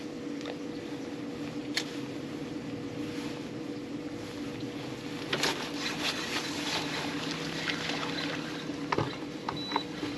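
Steady hum of a small electric motor on a bass boat, with a few sharp clicks and knocks scattered through.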